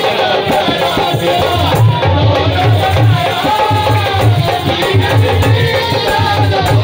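Qawwali: male voices singing melismatic lines into microphones over a steady dholak drum beat and the jingles of a shaken tambourine.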